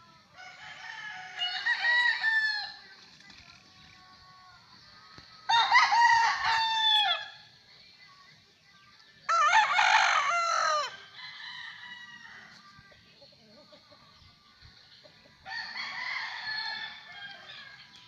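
Gamefowl roosters crowing, four loud crows a few seconds apart, with fainter crowing from other birds in between.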